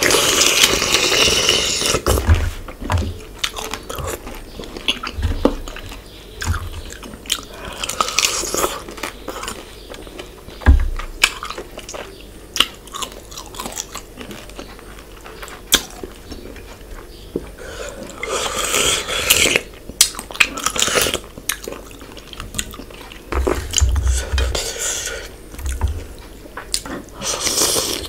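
Close-up mukbang eating sounds from a man eating fish curry by hand: wet chewing with many small mouth clicks and smacks. Louder slurping bursts come right at the start, around 8 seconds, around 18 to 20 seconds, and near the end, as he sucks curry and fish off his fingers. A few soft low knocks are heard.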